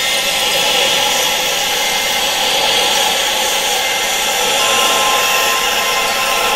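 Steady wind-like rushing noise with almost no low end, made as tinnitus sound therapy, with several steady high tones held underneath it throughout.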